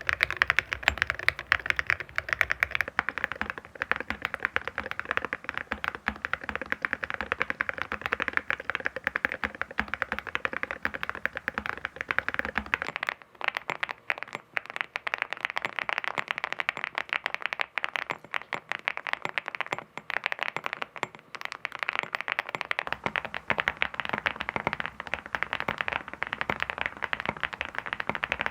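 Continuous fast typing on a mechanical keyboard fitted with full-metal keycaps: a dense run of hard metallic clacks. The low rumble underneath drops away for about ten seconds in the middle.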